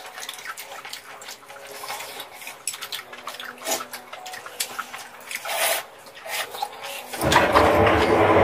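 Mouth eating sounds of saucy tteokbokki, wet chewing, with light clicks of metal chopsticks and a fork against the pan. About seven seconds in, a louder steady rushing noise with a low hum suddenly takes over.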